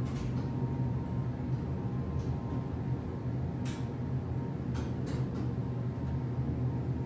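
Passenger elevator car in motion, a steady low hum with a few faint clicks about halfway through.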